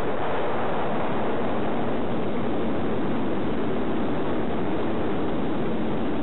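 DJI E300 quadcopter's four 2212 920kv motors and 9x4 propellers whirring steadily in flight, mixed with a rushing wind noise.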